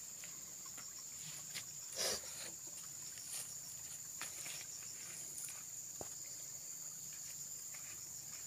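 Steady high-pitched insect chorus with scattered small clicks, and one brief louder noise about two seconds in.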